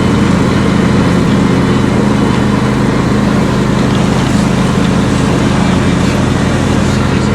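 An engine running at a steady speed, a constant drone that does not rise or fall.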